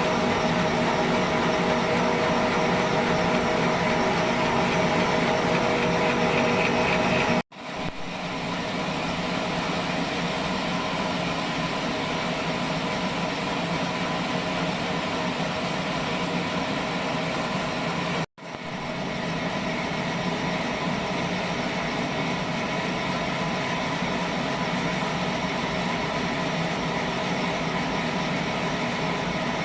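Trolley sawmill's saw running steadily, a machine hum with several steady tones. The sound cuts out abruptly twice, about a quarter and about two-thirds of the way through, and comes back a little quieter.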